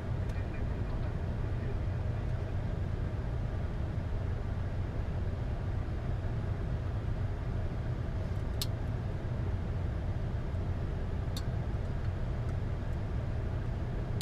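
Steady low rumble of the Boeing 747-8 flight deck's ambient noise: engines, airflow and air conditioning. Two sharp clicks about three seconds apart come in the second half.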